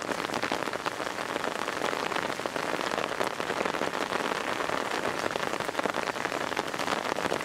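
Heavy rain falling in a downpour: a steady, dense patter of drops.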